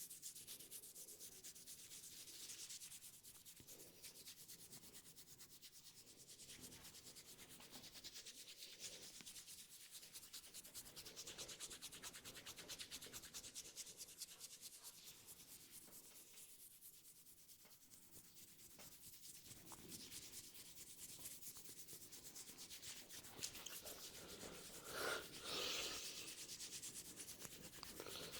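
Hands rubbing and scratching over hair and scalp in a head massage: a steady, rapid rustling hiss, with a couple of louder strokes near the end.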